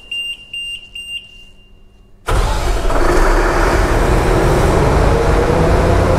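The generator's control panel beeps in a quick series of short high beeps for about the first second. After a short pause the Doosan diesel engine of a 500 kVA soundproofed generator set starts abruptly and runs loud and steady, with a faint whine rising slowly in pitch.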